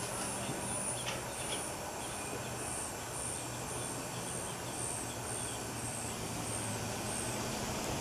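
Dark-eyed junco nestlings begging while a parent feeds them at the nest: a run of about a dozen thin, very high cheeps, evenly spaced at a bit under two a second, stopping shortly before the end. A steady low hum sits underneath.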